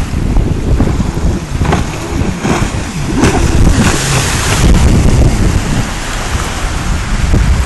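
Jet ski engine revving through tight turns close by, with rushing spray from its water jet, loudest about four seconds in, over heavy wind rumble on the microphone.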